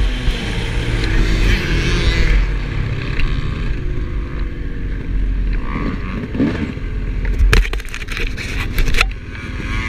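2007 Yamaha YZ250's single-cylinder two-stroke engine running under the rider with heavy wind rush on the microphone, easing off as the bike slows to a stop. A few sharp knocks or wind buffets come near the end.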